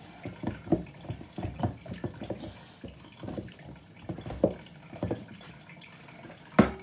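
Hands squeezing and pressing wet shortcrust pastry dough in a stainless steel mixing bowl: irregular soft squelches and knocks against the bowl. Near the end a sharper knock makes the steel bowl ring briefly.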